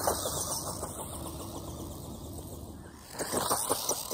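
Tamiya Grasshopper II RC buggy driving across grass: its 23-turn brushed electric motor and gearbox whirring with a steady rattle. The sound grows louder again about three seconds in.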